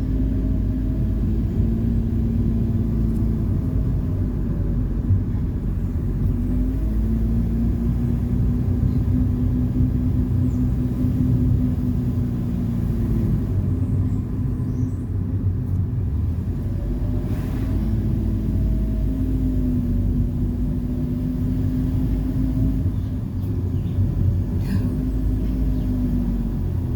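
Car driving: a steady low rumble of engine and road noise, with an engine hum that slowly rises and falls in pitch every few seconds.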